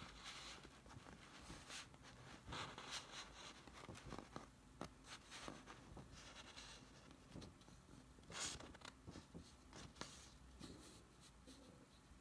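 Faint scratching of a pen writing on paper, with light paper rustling and a few small clicks, in short uneven strokes; the loudest stroke comes about eight seconds in.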